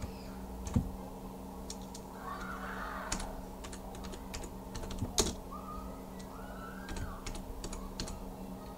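Typing on a computer keyboard: irregular key clicks, some sharper than others, over a steady low hum.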